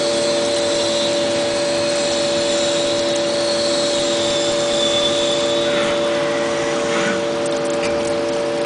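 CNC machine running: a steady hum of several constant tones under an even hiss, with a high whine that drifts slowly lower partway through.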